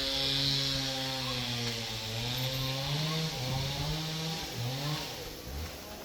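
A small engine running, its pitch rising and falling as it revs up and down.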